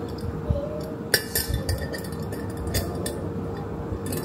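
Glass clip-top storage jar being closed: the glass lid and wire clamp clink against the jar several times as the lid is set on and pressed down, with the strongest clink about a second in.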